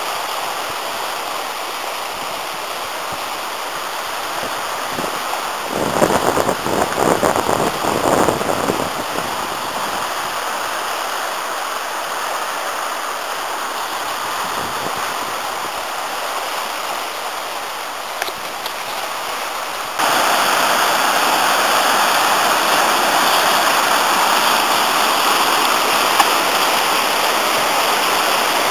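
The Afon Artro in spate after heavy rain, a steady rush of fast-flowing river water. There is a louder, uneven stretch about six seconds in, and the sound jumps suddenly louder about two-thirds of the way through and stays there.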